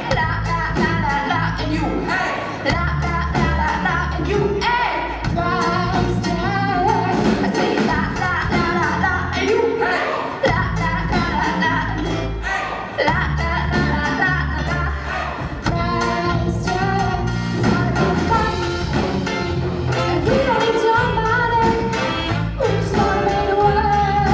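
Live reggae band playing a song with female lead vocals over drums, bass guitar and a trumpet and saxophone horn section.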